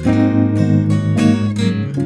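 Background music, an instrumental passage of strummed acoustic guitar chords with no singing.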